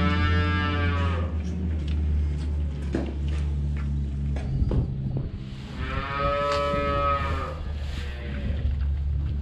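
Cattle mooing: two long moos, one trailing off about a second in and another starting about six seconds in, over a steady low hum.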